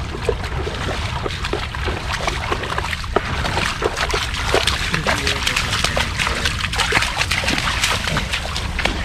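Shallow swamp water splashing and sloshing as a black Labrador retriever and a hunter in waders wade through it, with many small irregular splashes throughout.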